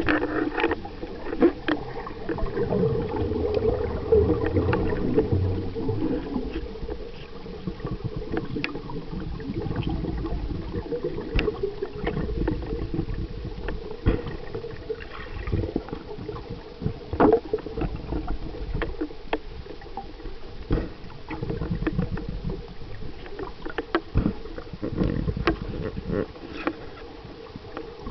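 Underwater sound picked up by a camera in its housing: low rumbling water movement with gurgling air bubbles, a steady hum, and many scattered sharp clicks and crackles.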